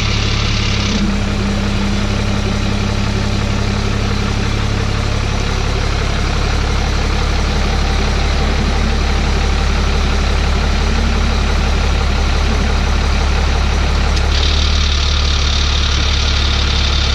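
6.7-litre Cummins turbo-diesel engine of a Ram pickup idling steadily while the truck creeps in reverse, a loud, even low rumble whose note shifts slightly about five seconds in.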